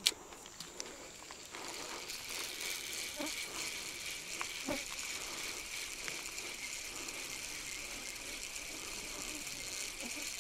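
Steady high-pitched insect chirring, with a sharp click right at the start and a few faint ticks.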